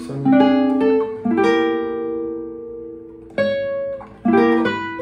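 Nylon-string classical guitar playing a short sequence of plucked chords, each left to ring and fade, about four or five chord changes with a brief dip before the last two. It is a jazz chord movement from an F minor six shell voicing out to octave voicings.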